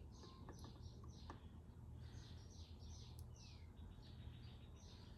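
Faint bird chirping: rapid runs of short falling chirps, several a second, over a low steady hum.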